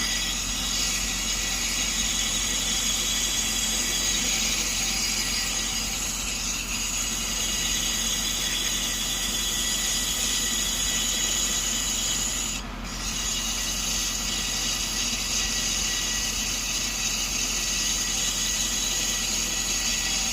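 Brake lathe turning a cast-iron brake drum as the cutting bit resurfaces it: a steady metallic ringing with several high whining tones, which drops out briefly about two-thirds of the way through.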